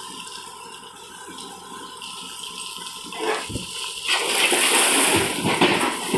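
Loose mud pouring and sliding from a backhoe loader's bucket, a rushing noise that swells suddenly about four seconds in, with a few dull thuds.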